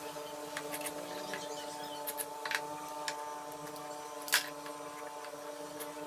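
Light clicks and knocks of wooden blocks and small hand tools handled on a wooden table saw sled, with one sharper knock a little past four seconds in, over a steady hum of several tones.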